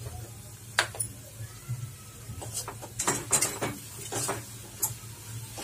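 Steel spoon stirring the thick coconut-and-jaggery modak filling in a steel kadhai, scraping and clinking against the pan. A single sharp clink about a second in, then a run of scrapes and clinks in the middle, over a steady low hum.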